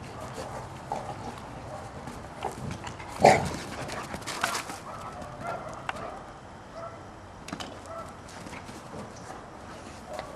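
Two Labradors fighting, giving short barks and whimpers at irregular moments, with one loud bark about three seconds in.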